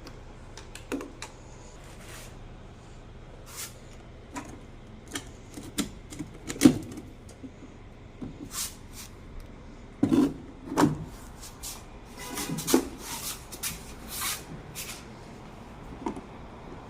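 Irregular clicks, taps and knocks of hands-on work with tools and parts, the loudest knocks about six and a half and ten to eleven seconds in, over a faint steady low hum.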